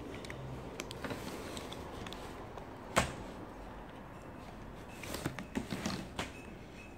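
Hard plastic toy case being handled and opened on a wooden table: scattered clicks and knocks, one sharp click about three seconds in, then a quick run of clicks and taps near the end.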